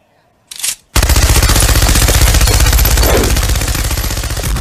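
Machine gun sound effect firing one long, rapid burst of many shots a second, starting about a second in and slowly fading. A brief noise comes just before it.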